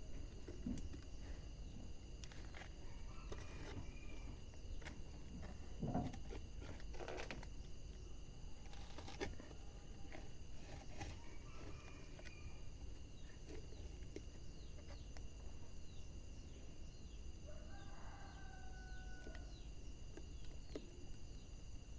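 Wood fire crackling with scattered sharp pops and snaps over a low steady rush, while chickens cluck a few times in the background, most clearly near the end.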